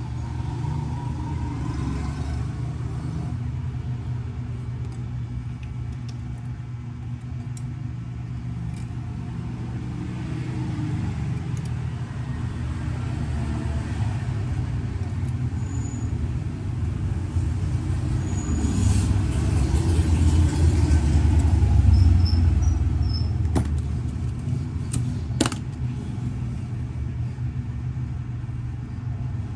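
Low, steady rumble of road traffic that swells and fades as a vehicle passes about twenty seconds in, with a sharp click a few seconds later.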